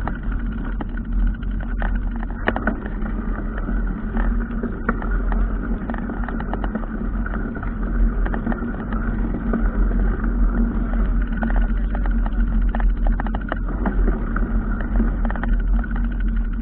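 Motor vehicle running steadily, heard close, with scattered clicks and rattles.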